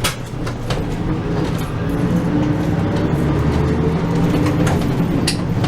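Route bus running, heard from inside the passenger cabin: a steady engine drone with a few sharp clicks or rattles near the start and near the end.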